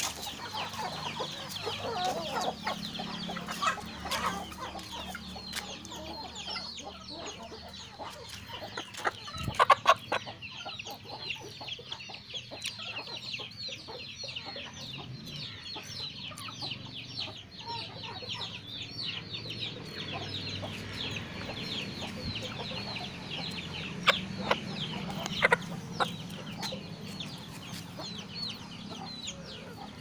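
A flock of chickens clucking, with a continuous stream of short high calls, several a second. A few sharp knocks come around ten seconds in and again about twenty-four to twenty-five seconds in.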